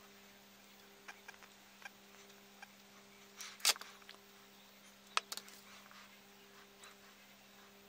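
Quiet room tone with a steady low hum and a few light clicks and taps from makeup tools being handled. The two loudest clicks come about three and a half and five seconds in.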